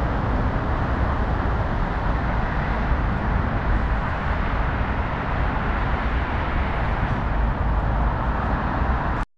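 Steady outdoor city street noise with a heavy low rumble, cut off suddenly near the end.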